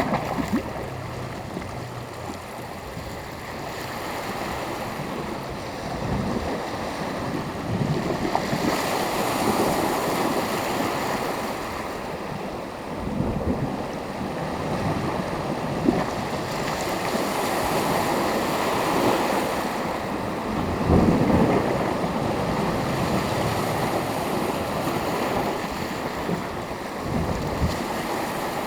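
Sea surf: small waves breaking and washing up the shore, the wash swelling and easing every few seconds.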